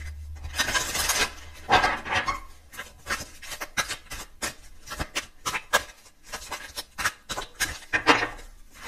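A tarot deck being shuffled by hand: cards rasping and flicking against each other in quick, irregular bursts.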